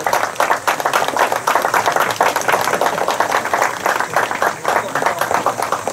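Spectators applauding: many hands clapping in a dense, steady patter.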